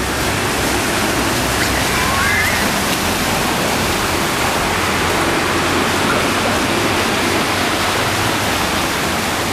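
Heavy rain and floodwater running across a street, a loud steady rushing hiss.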